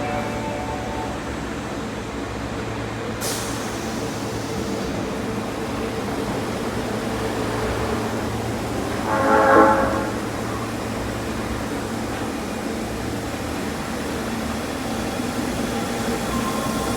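Osaka Metro Midosuji Line train running steadily at the platform with a continuous rumble. A hiss comes in about three seconds in, and a short horn blast sounds once near the middle.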